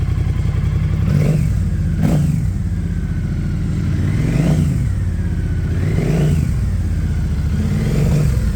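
Triumph Bonneville T120's 1200 cc parallel-twin engine, breathing through a REMUS exhaust with catalysts, idling and being blipped about five times, each rev rising and quickly falling back to idle.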